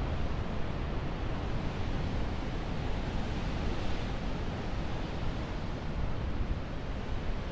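Surf breaking and churning against the rocks below a sea cliff: a steady rushing noise that swells a little about halfway through, with wind buffeting the microphone.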